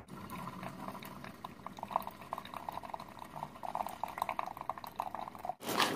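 Single-cup coffee maker brewing into a mug, hot coffee streaming and bubbling with a rapid, irregular crackle; it cuts off abruptly about five and a half seconds in.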